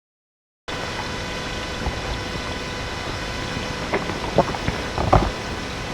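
Volume-boosted night field recording: a steady hiss with faint electrical tones begins just under a second in, after silence, then a few sharp knocks or clicks come in quick succession past the middle.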